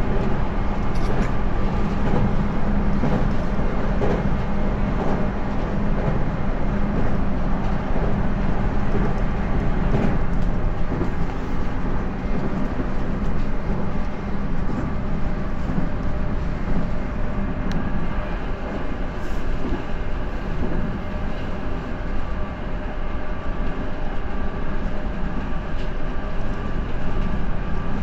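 JR 211 series electric train running: steady rolling noise of wheels on rail with the hum of its external-fan traction motors. The low motor hum fades about halfway through.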